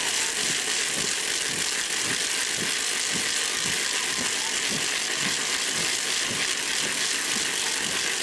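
A crowd of festival dancers moving together, their steps thudding in a steady rhythm of about two a second under a constant high-pitched hiss.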